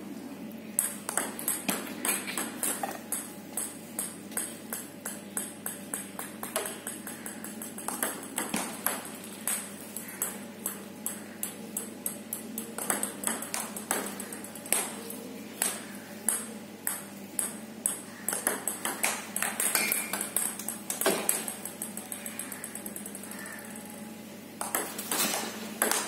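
Table tennis rally: the ball clicking off the rackets and bouncing on the table in a quick, steady rhythm of a few hits a second, thinning out briefly near the end before picking up again.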